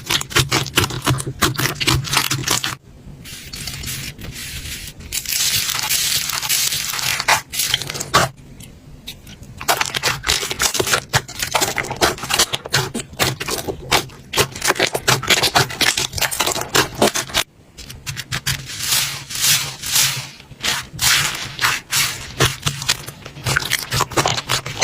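Slime being squeezed and pressed by hand, making dense crackling, popping and scraping sounds.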